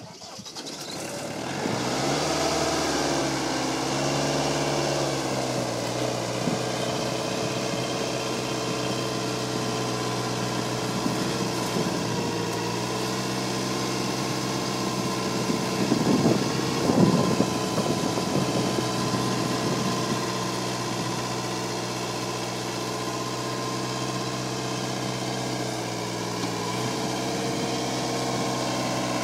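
Vermeer SC50TX stump grinder's engine running, its pitch wavering for the first few seconds before settling into a steady run, with a brief louder, rougher stretch about two-thirds of the way through.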